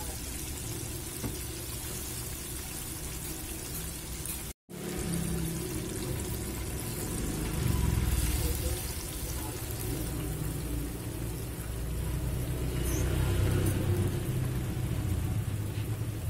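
Battered chicken pieces deep-frying in hot oil: a steady sizzling and bubbling, with louder low rumbling now and then. The sound breaks off for a moment a little over four seconds in.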